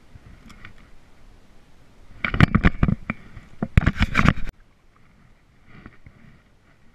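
A close, loud cluster of knocks and scrapes of gear being handled on a paddleboard, lasting about two seconds and stopping abruptly about two-thirds of the way in.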